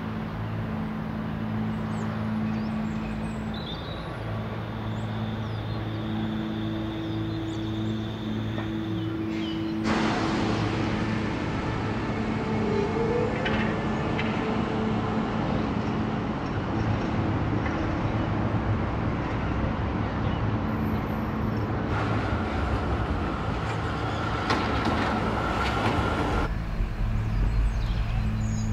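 Low steady drone of sustained tones throughout. About ten seconds in, city street noise of traffic and a passing tram starts, with a steady high tone for a few seconds near the end.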